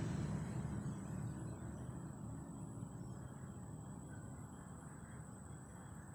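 Wind rumbling on the microphone and slowly dying away, leaving a faint outdoor background with a thin, steady high-pitched tone.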